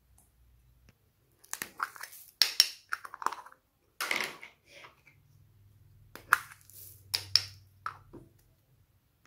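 Clear plastic bead containers clicking and knocking as they are handled, and small foam beads rattling out onto slime in a glass dish, in two bursts of sharp clicks with a quiet spell between.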